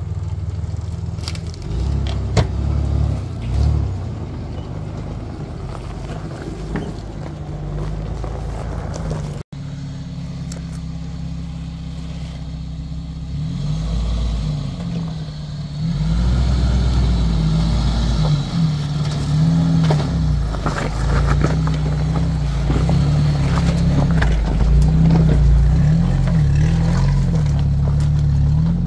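Off-road 4x4 engines running at low revs while crawling over rocks, with tyres crunching and scraping on the stones. In the second half the Jeep Wrangler's engine gets louder, its revs rising and falling as it climbs.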